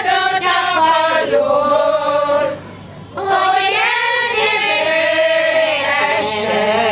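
Hungarian village women's choir singing a traditional folk song. There is a short pause for breath about three seconds in, and then the next sung phrase.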